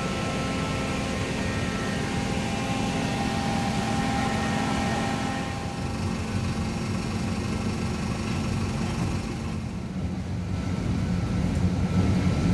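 Steady mechanical hum of a Hong Kong Light Rail vehicle and rail equipment at the stop, low rumble with a faint high whine. It grows louder near the end.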